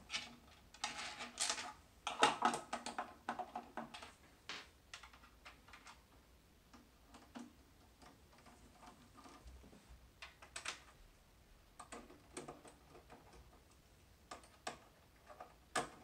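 Screws being driven into a Macintosh Plus's plastic back case with a long screwdriver: irregular small clicks and scrapes of the screwdriver tip and screws against plastic, busiest in the first few seconds, then scattered clicks.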